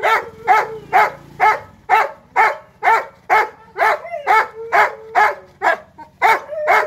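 A Labrador retriever barks over and over at an even pace, about two barks a second. It is tied on a leash and being kept from running after its owner's vehicle.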